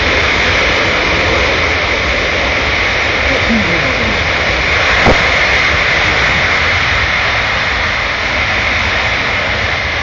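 Loud, steady jet noise from a C-17 Globemaster III's four Pratt & Whitney F117 turbofan engines running at high power in reverse thrust after landing. The noise eases slightly near the end.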